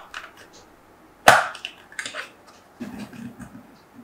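Hard plastic housing of an infrared thermometer being pried apart. Its locking tabs click and snap, with one sharp loud snap about a second in and smaller clicks and knocks around it.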